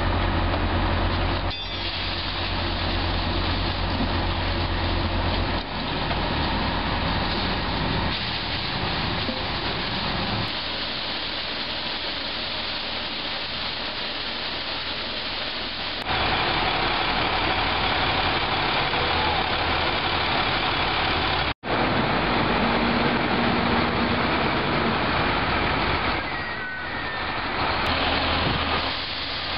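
Vactor sewer vacuum truck running steadily up close: heavy engine rumble with mechanical noise. The sound changes abruptly several times and drops out for a split second about two-thirds of the way through.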